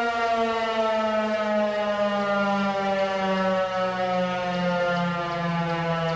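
Federal Signal Equinox outdoor warning siren sounding its steady test tone, its pitch sliding slowly lower.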